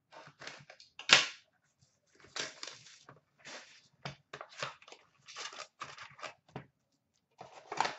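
A cardboard box of 2013-14 Upper Deck Artifacts hockey card packs being handled: a run of short scraping, rustling and tapping sounds. The loudest is a sharp snap about a second in.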